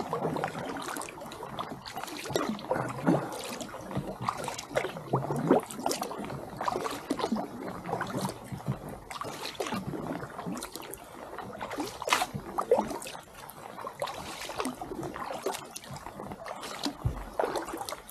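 Kayak paddling on calm water: the paddle blades dip and pull in irregular strokes, with splashes and drips falling from the blades.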